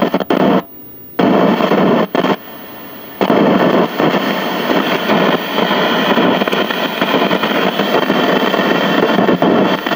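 Loud crackling static from a 1968 RCA Victor tube TV's speaker. It cuts out and back in a few times in the first three seconds, then runs on steadily. The owner puts it down to a bad volume control whose ground lead has come unsoldered from the chassis.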